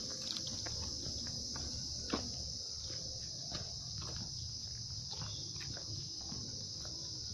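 Insects, crickets or similar, shrilling in one steady high-pitched drone, with a few scattered light knocks; the clearest knock comes about two seconds in.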